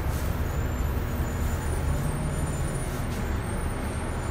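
Steady low engine rumble and road noise inside a city bus cabin.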